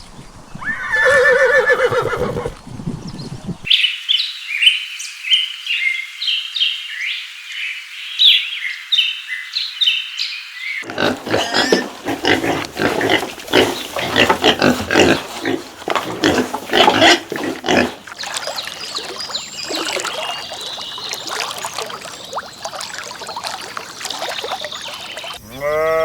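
Calls of several different animals, one short clip after another. A pitched call comes near the start, then several seconds of high quick chirps, then a long stretch of rapid, rough calls.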